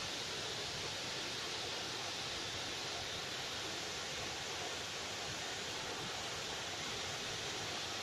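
Steady, even rush of a wide waterfall pouring over a rock cliff.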